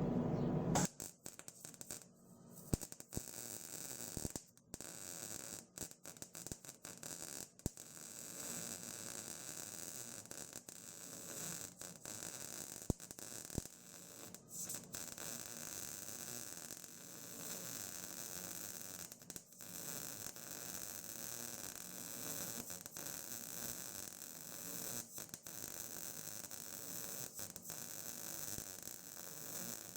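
MIG welder arc running steadily as a bead is laid to close the break in a mower's broken front frame, with a few short pauses where the trigger is let off.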